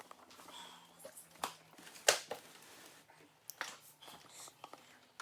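Objects being handled and set down: a few sharp clicks and knocks with light rustling, the loudest knock about two seconds in.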